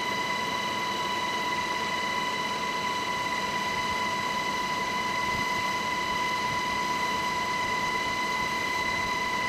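UH-60 Black Hawk helicopter in flight, heard from inside the cabin with the side door open: a steady rushing noise with a constant high-pitched whine.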